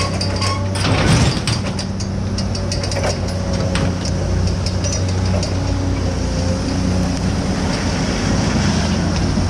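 A vehicle engine running steadily with a low hum. A few knocks or rattles come in the first second and again around three seconds in.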